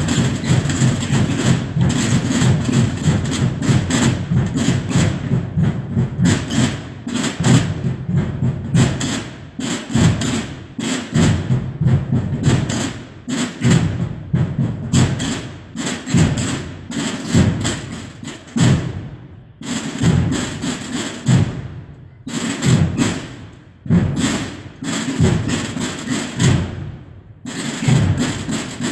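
Holy Week drums beating together in a dense, rapid run of strokes.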